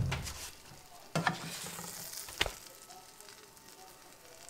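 Pancake batter sizzling in a hot frying pan, with a clunk about a second in and a sharp click about halfway through.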